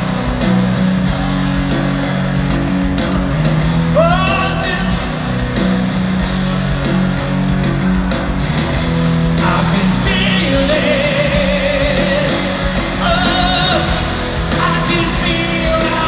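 Live rock band playing a song's wordless instrumental stretch with electric guitar, bass and drums, recorded from within the crowd. Wordless singing rises over the band about four seconds in and again in the second half.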